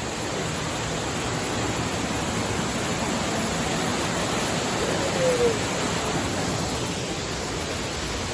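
Steady rushing of falling water from a waterfall, an even hiss that does not let up. A faint short falling chirp about five seconds in.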